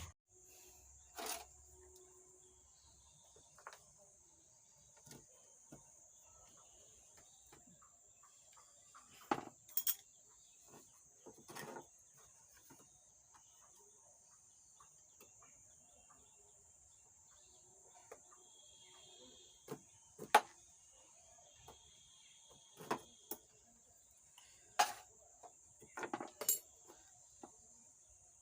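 Scattered light clicks and taps of hand tools on an amplifier circuit board while a faulty 4.7K resistor is desoldered and pulled out, over a steady faint high hiss.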